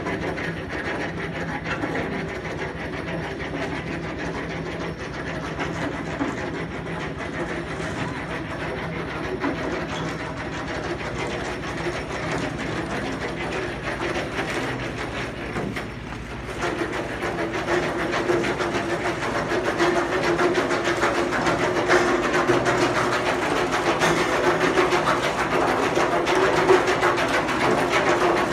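Machinery running with a steady, rapid mechanical clatter, growing louder about two-thirds of the way through.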